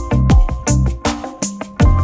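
Background music with a steady beat: electronic track with deep kick drums, bass notes and cymbal hits.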